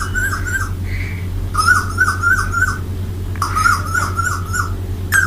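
A cuckoo singing in a played recording. It gives runs of three to five quick repeated notes in three bursts, over a steady low hum.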